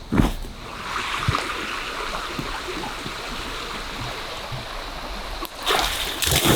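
River water rushing steadily. A single knock comes right at the start, and the rush grows louder about five and a half seconds in.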